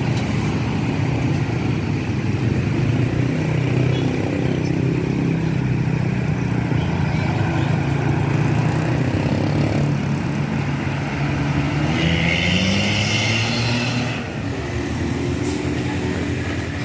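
Large diesel vehicle engine running at low speed, rising in pitch near the end as it accelerates, with a short hiss about twelve seconds in.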